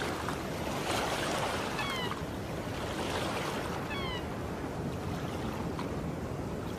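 Steady seaside ambience of waves and water washing, with two short cries that fall in pitch, about two seconds apart.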